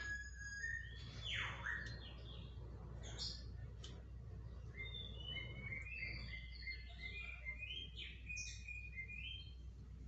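Birds chirping and whistling in short overlapping calls, with one loud downward-sweeping whistle about a second and a half in.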